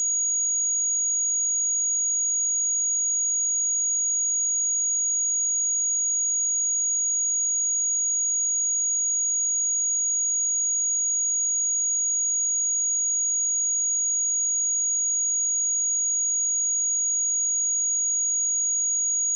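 A pure 6727 Hz sine-wave test tone: one steady, high-pitched whistle held at an unchanging level.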